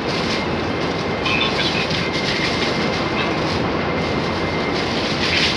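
Heavy rain pouring down, a loud steady hiss.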